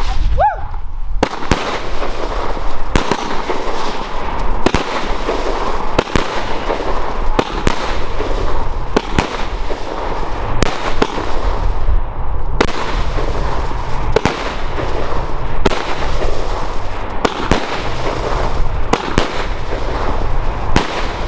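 Argento Ammandra, a 13-shot 30 mm consumer fireworks battery, firing its shots one after another, a sharp report about every one and a half seconds. Between the shots there is a dense, continuous crackling hiss of burning red and blue strobe stars. A short rising whine comes near the start.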